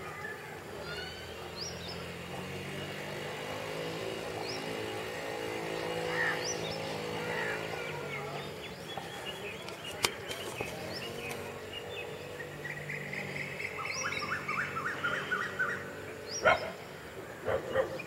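Small birds chirping: short high chirps throughout and a quick run of chirps about three-quarters of the way in. Under them, a low hum swells and fades during the first half. A couple of sharp clicks near the end are the loudest sounds.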